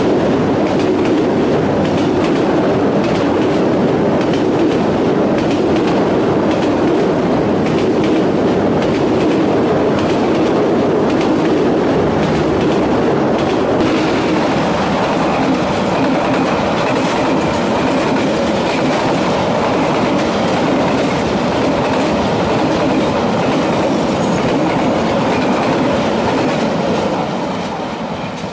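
Vietnam Railways passenger train coaches rolling past close by at speed, wheels clicking over the rail joints. Near the end the sound fades as the train moves away.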